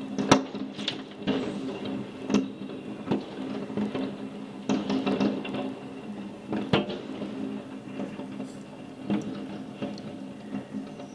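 Fireworks going off: irregular sharp bangs and crackles, a dozen or so, the loudest just after the start.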